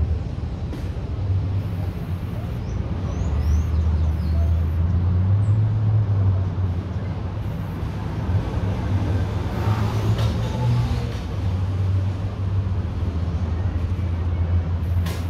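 A steady low rumble, with a brief swell of hiss about ten seconds in.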